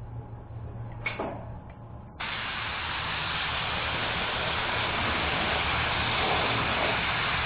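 Compressed-air paint spray gun spraying: a steady hiss of air and atomised paint that starts suddenly about two seconds in as the trigger is pulled, after a low hum and a single click.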